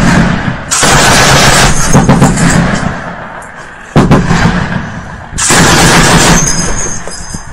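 Machine gun firing three long bursts of automatic fire from inside a room, very loud and distorting the microphone. The first burst runs from the start to about two and a half seconds in, the second starts sharply at about four seconds and the third comes near the end.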